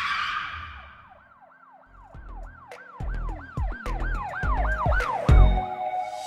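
Produced intro sound design: a short swell that fades in the first second, then a siren-like yelp sweeping up and down about three times a second. Deep bass hits come in under it and grow louder, building into the music.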